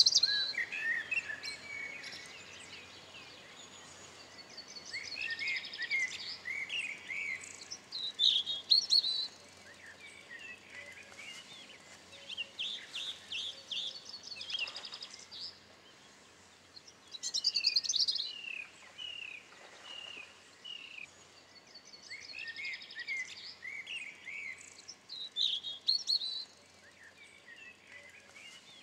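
Small songbirds singing: quick, high chirping and twittering phrases that come in bunches every few seconds, with quieter gaps between.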